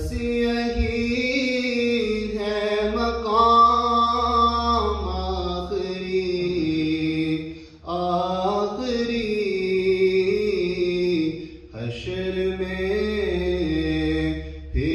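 A man singing an Urdu naat with no instruments: long, held notes that slide and ornament between pitches, in phrases broken by short pauses for breath about halfway through and again near the end.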